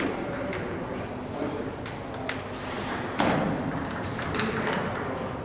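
Table tennis balls clicking off paddles and tables in a hall where several games are in play, an irregular patter of sharp ticks with one louder knock about three seconds in.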